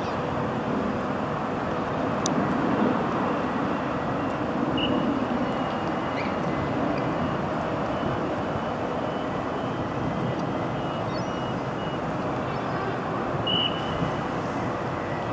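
NS Sprinter Lighttrain electric multiple unit rolling slowly along the platform, a steady running noise with a faint steady whine.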